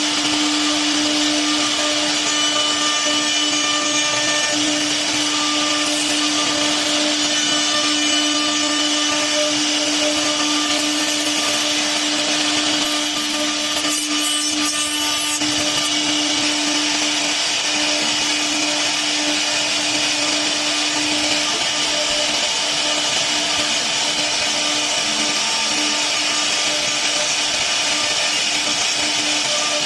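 CNC wood router running, its spindle giving a steady whine over a constant machine noise, with a brief stretch of harsher high hiss about halfway through.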